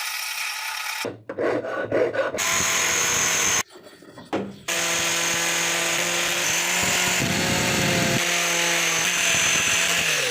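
Electric power tool working on the metal of rusty pliers, heard as a string of short cut-together clips of rubbing and grinding, then a steady motor hum for the last five seconds or so.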